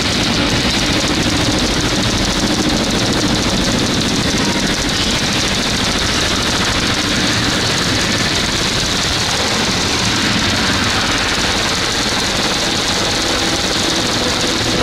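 Recorded Saturn V rocket launch noise played back loudly through a theatre's sound system: a dense, steady engine noise that holds level without a break.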